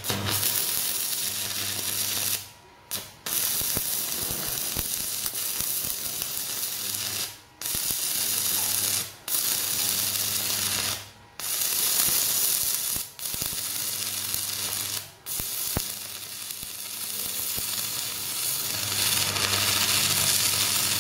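Stick-welding arc crackling and sizzling as an electrode burns down on a steel plate, run from a Jasic ARC-250 inverter welder. The arc breaks off briefly about seven times and restrikes each time.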